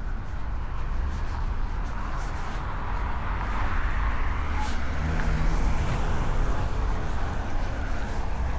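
Wind rumbling on the microphone, with the noise of a road vehicle swelling as it passes about halfway through.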